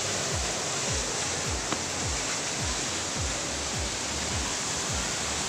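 Steady rushing roar of a tall waterfall. Under it runs a low thudding beat of background music, about two beats a second.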